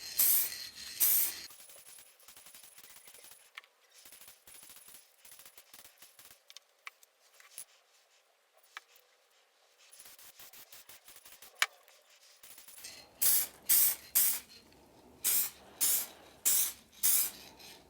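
Aerosol rattle can of clear coat spraying in short bursts of hiss. There are a couple of bursts at the start, then a long pause, then a quick string of short bursts near the end.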